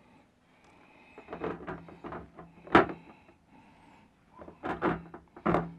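A handful of hard knocks and clunks as a snorkel body is handled and pulled away from the car's A-pillar and guard, the loudest a sharp knock about three seconds in.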